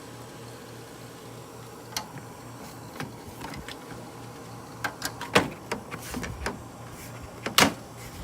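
Vintage GM Frigidaire window air conditioner running on cool with a steady low hum. Several sharp clicks and knocks land over it, clustered in the second half, the loudest near the end.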